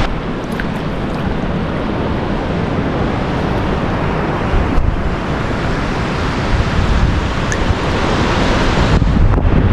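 Shallow sea water sloshing and washing around a microphone held at the water's surface: a steady, dense rush with wind noise mixed in, a little louder near the end.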